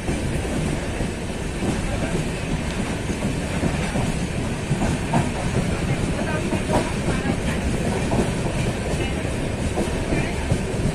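A passenger train running at speed, heard from on board: a steady rumble of wheels on rails with scattered knocks and clatter.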